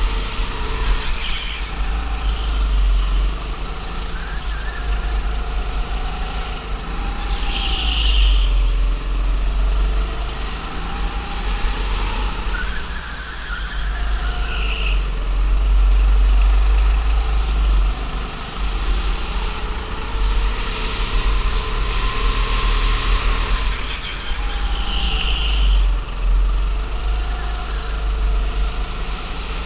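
Go-kart's small petrol engine running under load from the driver's seat, its revs rising and falling again and again as it accelerates and lifts off through the track's corners, over a deep steady rumble. A few short, high tyre squeals cut in at separate moments.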